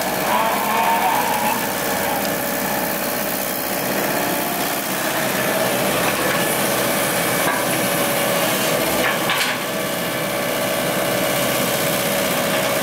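Komatsu hydraulic excavator's diesel engine running steadily, with a couple of brief knocks, around the start and about nine seconds in.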